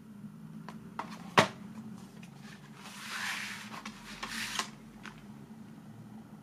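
Hands handling a DVD box set: a few light clicks and one sharp click about a second and a half in, then the card episode booklet sliding and rubbing against the case, twice.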